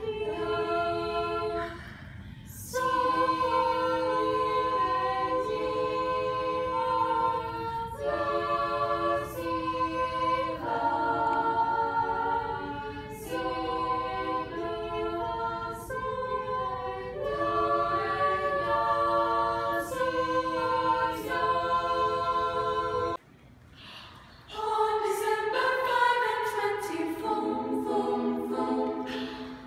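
A high school choir singing a cappella in phrases with short breaths between them, over a steady low hum. About 23 seconds in, it cuts off suddenly, and a small group of four voices starts singing a cappella.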